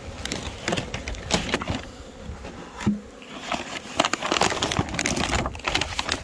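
Brown kraft-paper sack covering a beehive rustling and crinkling as it is peeled back from the hive top, in irregular crackles, over a steady buzz of honeybees.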